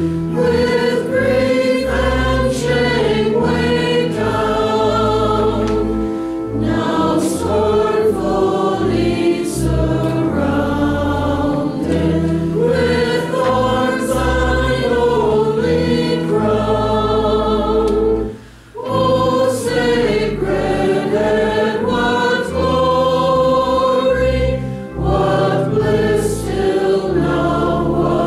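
Mixed choir of men and women singing a slow hymn together, with a short pause between phrases about two-thirds of the way through.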